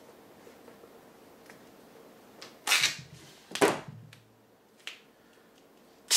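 Tape pulled off a roll in two short ripping strokes about three seconds in, with a few light clicks around them and a sharp snap at the end.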